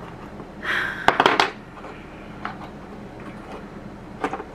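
Small hard objects handled by hand: a quick clatter of clicks and knocks about a second in, then a few fainter taps and clicks.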